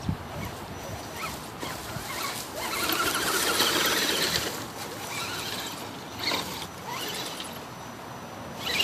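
Axial SCX10 RC crawler's electric motor and geared drivetrain whining as the truck drives over grass and rocks. The whine is louder for about two seconds in the middle.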